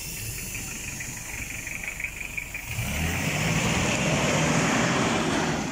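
Engine of a Toyota Land Cruiser Prado 4x4 driving through mud: quiet at first, then much louder from about three seconds in as the vehicle passes close by.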